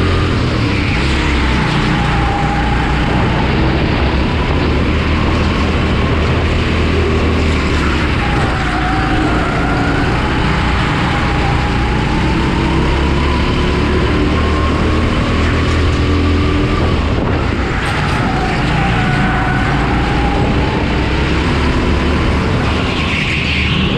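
Honda GX270 single-cylinder four-stroke engine of a Rimo EVO6 kart at race pace, heard onboard: a loud, steady engine note whose pitch drops in the corners and climbs again on the straights, several times over.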